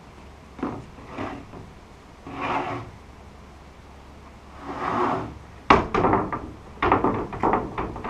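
Rough-sawn wooden boards sliding and scraping against one another, then clattering down onto a stack with a run of sharp knocks after about five and a half seconds.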